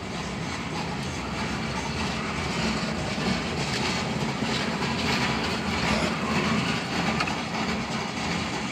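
Tank cars of a freight oil train rolling past, a steady noise of steel wheels running on the rails.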